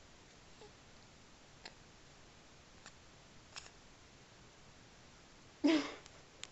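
A baby's short, sharp vocal sound, a grunt of effort, near the end, over a quiet room with a few faint clicks and rustles.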